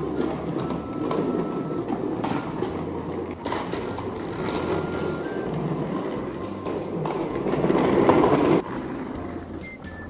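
Small plastic wheels of a child's swing car rolling over a concrete floor, a steady rumble that swells and then stops abruptly near the end.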